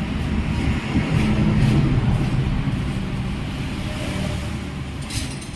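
A motor engine running with a low hum, growing louder about a second in and then slowly fading.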